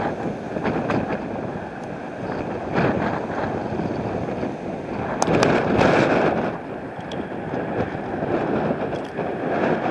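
Storm wind gusting hard and buffeting the microphone, a rough rushing noise that swells and falls, loudest about five to six seconds in, with a few short crackles.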